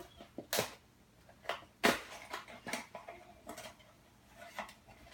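Irregular clicks, taps and light rustling from toy blind-box packaging being handled and opened, a dozen or so sharp short sounds spread unevenly, the loudest about two seconds in.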